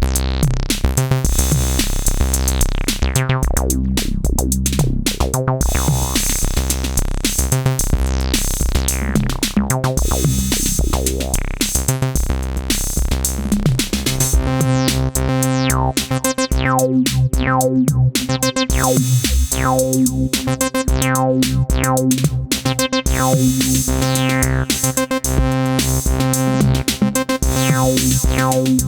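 Acid bass line on an Elektron synthesizer over a drum-machine beat, its resonant filter sweeping up and down. About halfway through the part changes to steadier, more held bass notes.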